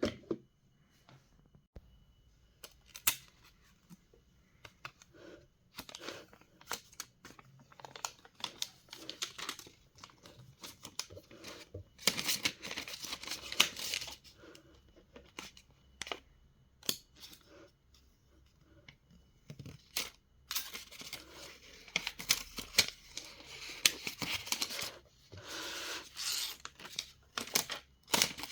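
Packaging of a Mac mini box being torn open and handled: bursts of tearing and crinkling paper and plastic, with sharp clicks and taps in between. The longest stretches of tearing come about twelve seconds in and again from about twenty seconds in.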